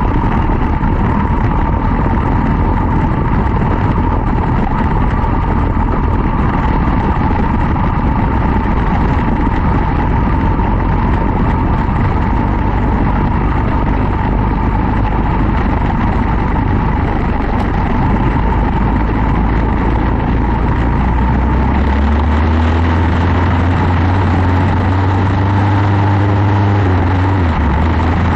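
Quarter midget race car's single-cylinder Briggs & Stratton Animal engine running hard during a heat race, a dense, steady mechanical din. About three-quarters of the way through, a deeper tone comes in and a higher tone climbs slowly in pitch.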